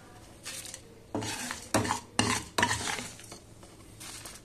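A slotted spoon scraping and scooping fried urad dal, coriander seeds, curry leaves and dried red chillies out of a non-stick pan and onto a steel plate. About five short scrapes come in the first three seconds, over a faint sizzle of hot oil, and it is quieter near the end.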